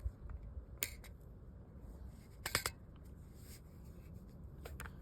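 Sharp plastic-and-metal clicks of a Glock 34 pistol and its magazine being handled as the magazine is taken out: a single click about a second in, a quick cluster of clicks around two and a half seconds, and two lighter ones near the end, over a faint low rumble.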